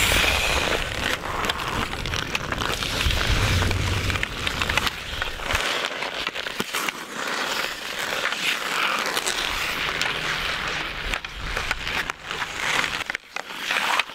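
Ice skate blades scraping and carving across natural pond ice, with sharp clicks and taps of hockey sticks against the puck and the ice. A low rumble underneath stops about halfway through.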